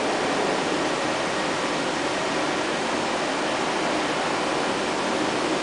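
Kitamura Mycenter-2 CNC vertical machining center powered up and idling, giving a steady, even machinery hiss with no cutting or axis moves.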